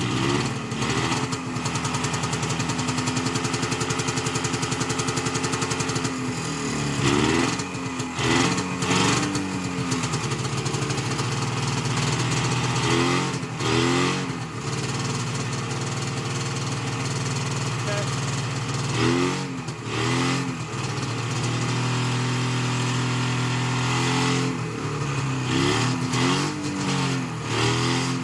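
Vintage snowmobile engine idling steadily and revved in short bursts several times, the pitch rising and falling back with each rev.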